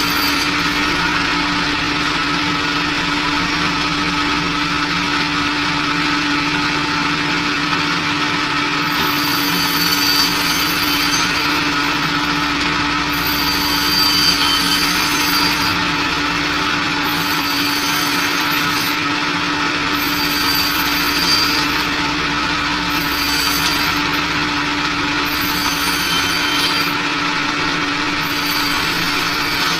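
Global HBS-250D meat-and-bone band saw running with a steady motor hum while its blade slices through a pork hind leg. A brighter hiss comes and goes every couple of seconds from about a third of the way in as the blade cuts.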